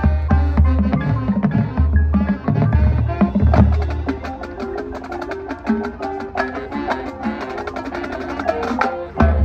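High school marching band playing live. Heavy low drum hits fill the first few seconds. Then comes a lighter passage of rapid, short percussion strokes over held notes, and another heavy low hit comes in near the end.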